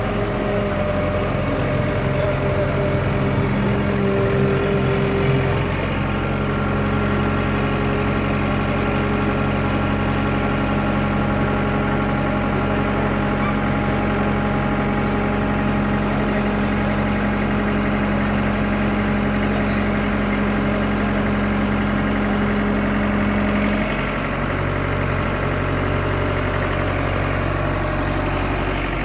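ACE ACT 60 tracked combine harvester's diesel engine running steadily as the machine drives slowly. The engine note shifts about six seconds in and drops slightly a few seconds before the end.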